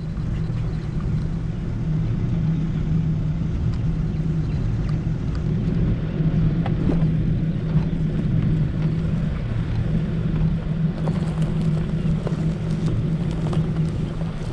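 Steady low drone and rumble of a vehicle's engine running, with a constant hum and no change in pitch.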